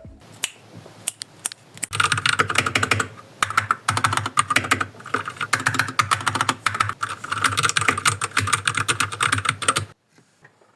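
Typing on a GK61 60% mechanical keyboard with Speed Silver switches: a few scattered keystrokes, then fast continuous clacking from about two seconds in, with a brief pause, stopping suddenly near the end.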